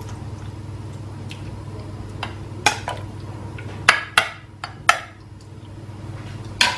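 A metal spoon clinking and scraping against a frying pan and a glass baking dish while spreading minced-meat sauce, with about six sharp clinks in the second half. A steady low hum runs underneath.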